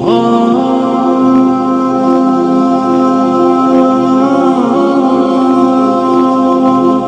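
Background vocal music: long held sung notes over a steady drone, with the voice sliding up to a new note at the start and near the end.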